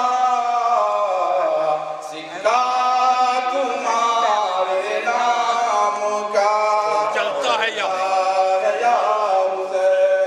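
A man singing an Urdu devotional poem unaccompanied through a PA, in long held, wavering notes, with a short break about two seconds in.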